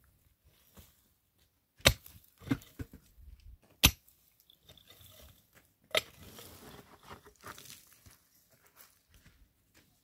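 Three sharp knocks about two seconds apart, with a couple of smaller knocks and soft scraping and rustling between them.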